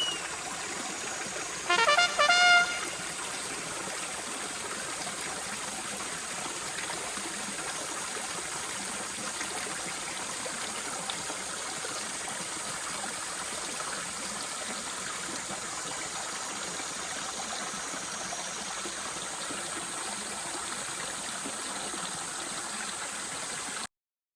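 Steady rushing noise of flowing water, with a short horn-like tone about two seconds in; the noise cuts off suddenly near the end.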